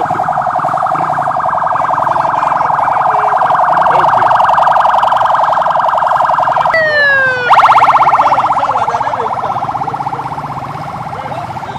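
Siren on a motorcade vehicle sounding a fast warble, with a falling pitch sweep about seven seconds in before it starts again at its loudest; it then fades steadily as the convoy moves off.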